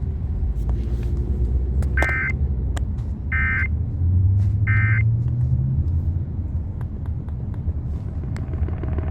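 Three short bursts of Emergency Alert System data tones, the end-of-message signal that closes a warning broadcast. They come about a second and a half apart, over the steady low rumble of a moving car.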